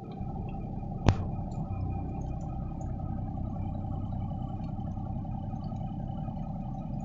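Work truck engine idling, heard from inside the cab as a steady low rumble, with one sharp click about a second in.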